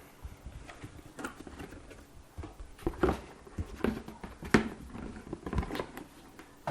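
Helmet box and its packaging being handled: irregular light taps, knocks and rustles, the sharpest knock about four and a half seconds in.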